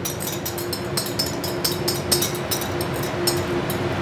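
A utensil scraping and clicking quickly and irregularly against bowls as egg yolks are scraped from a small bowl into a metal bowl set over a water bath, with a steady low hum underneath.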